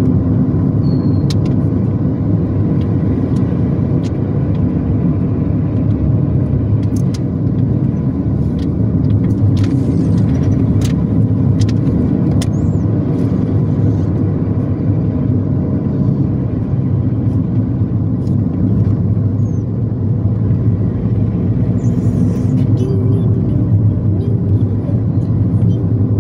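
Steady engine and road rumble heard inside the cabin of a moving car.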